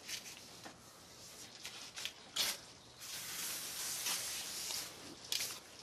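Blue painter's tape being pulled and pressed down by hand onto a car's painted decklid: a dry rustling hiss lasting about two seconds in the middle, with a few short scuffs before and after.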